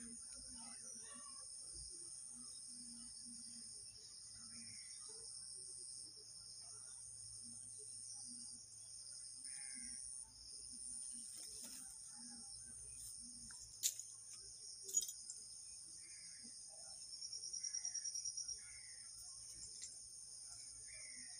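Insects chirping in a steady high-pitched chorus. A louder, fast-pulsing trill comes about three-quarters of the way through, and two sharp clicks about a second apart come shortly after the middle.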